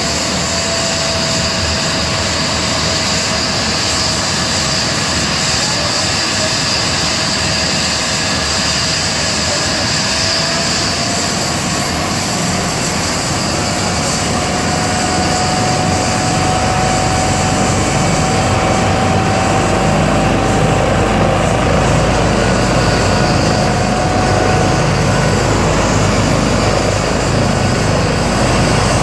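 Airbus H135 helicopter's twin Pratt & Whitney PW206B3 turboshaft engines and main rotor running on the ground ahead of take-off: a steady turbine whine that rises a little in pitch about a third of the way in. A low rumble grows louder through the second half.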